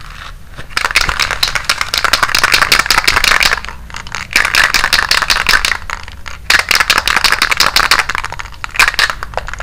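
Oxygen-brand aerosol spray-paint can being shaken hard, the mixing ball rattling rapidly inside to mix the paint before spraying. It comes in three spells with short pauses about four and six seconds in.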